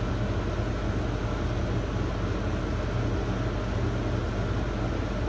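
Laboratory deep freezer's refrigeration unit running: a steady low hum with an even hiss.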